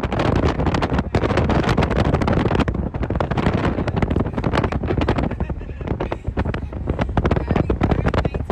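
Wind buffeting a phone's microphone in a car: a loud, rough, continuous rumble full of irregular crackles.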